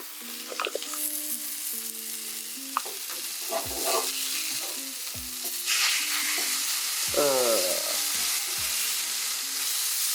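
Chicken burger patties sizzling as they fry in oil in a pan, with a few short knocks as a spatula works them. The sizzle grows louder about six seconds in; the patties are catching and getting a bit burnt.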